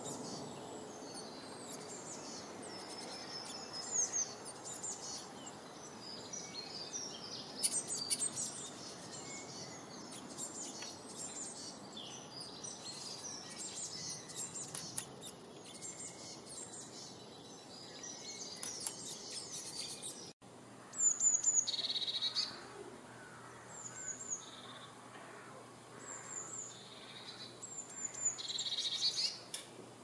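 Songbirds chirping and singing, many overlapping high calls at first. About two-thirds of the way through the sound cuts to a sparser stretch of short, high, falling calls repeated every second or two, the loudest just after the cut.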